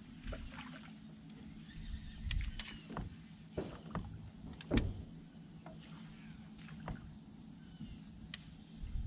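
Bow-mounted electric trolling motor humming steadily, with a scattering of sharp clicks and knocks on the boat, the loudest a little under five seconds in.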